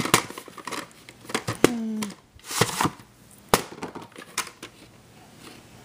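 Handling noise from a VHS tape being picked up and moved about on a wooden table: a string of sharp clicks and knocks with some rustling. A brief squeak comes about two seconds in.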